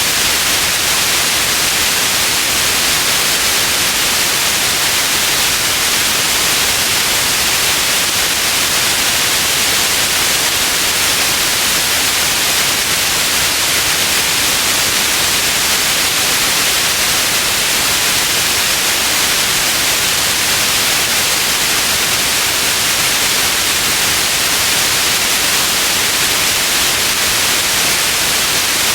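Steady synthetic white noise: an even, unchanging hiss, strongest in the high range.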